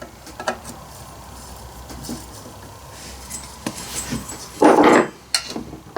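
Chainsaw parts and screws being handled during reassembly: scattered light clicks and clinks, with one louder short clatter about four and a half seconds in.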